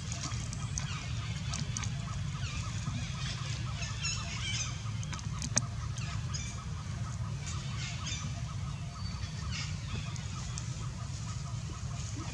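Scattered short, high animal calls over a steady low rumble and a fast, even ticking.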